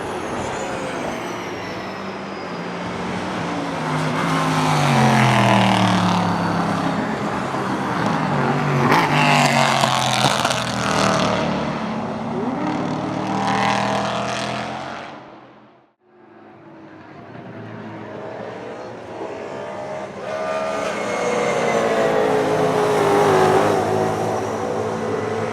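V8 racing saloon cars passing at speed, their engine notes climbing and falling in steps with gear changes. About two-thirds of the way through, the sound fades sharply to a brief silence, then builds again as more cars approach and pass.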